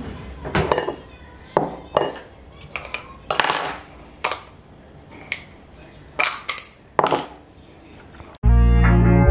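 Kitchen handling sounds: a string of sharp clicks and knocks as a table knife and a screw-lidded jar are handled on a benchtop and the jar's plastic lid is twisted off. Near the end, background music starts suddenly.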